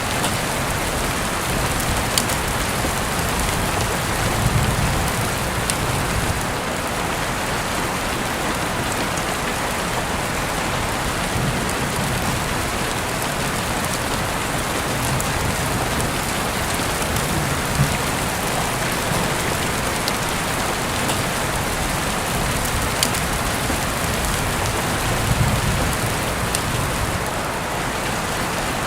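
Steady rain falling on a surface, an even hiss with scattered sharp drop ticks and a few soft low rumbles swelling now and then.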